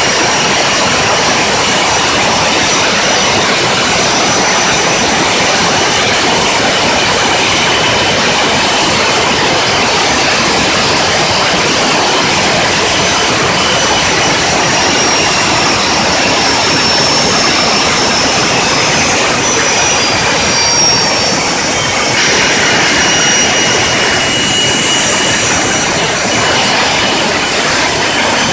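Boeing 727's rear-mounted Pratt & Whitney JT8D turbofan running, a loud steady roar with a thin high whine over it. About three-quarters of the way through, the whine shifts and becomes more distinct.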